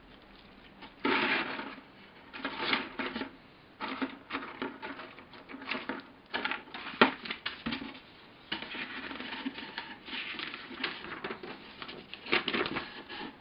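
Paper instruction sheets and plastic parts bags being handled and leafed through: irregular rustling and crinkling with a few sharp handling clicks, the loudest about a second in and about seven seconds in.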